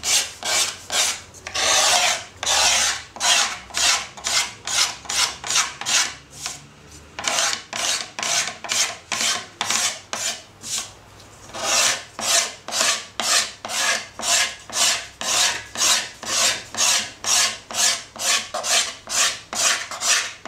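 Wood being filed by hand, about two strokes a second, each a dry scrape. One longer stroke comes about two seconds in, and there is a brief pause about seven seconds in.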